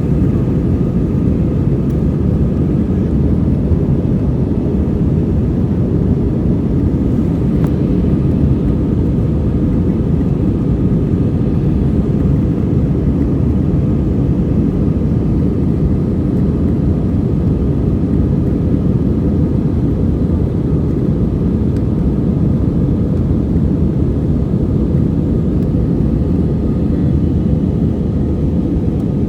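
Jet airliner cabin noise: a steady, even low rumble of the engines and rushing air heard from inside the passenger cabin, with faint steady tones above it.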